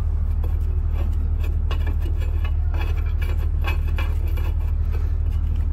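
Faint metallic clicks and rubbing as the threaded end of a diesel injector puller is tried on the M8x1 gauge of a thread checker, over a steady low hum.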